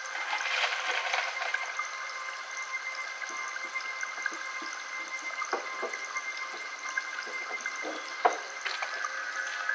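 Running water, with several steady high tones held beneath it and scattered faint clicks.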